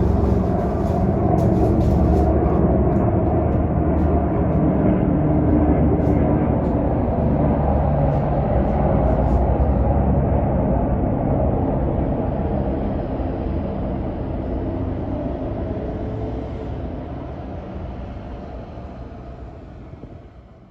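AS350 Écureuil helicopter flying by, its rotor and turbine noise steady at first and then dying away over the last several seconds.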